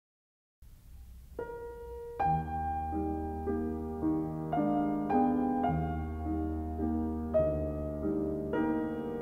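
Piano music starting about half a second in: a single note, then slow, quiet chords changing every half second or so over a held low bass.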